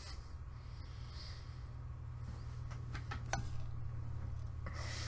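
Pause in a man's speech: a steady low hum of room tone with a few faint clicks in the middle, and a breath drawn near the end.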